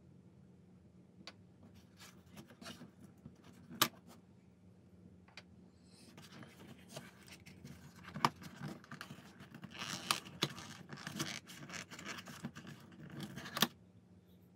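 Hands handling cardboard packaging and black plastic telescope-kit parts: a few separate clicks and taps, then from about six seconds in a busier stretch of rustling and scraping with knocks, which stops shortly before the end.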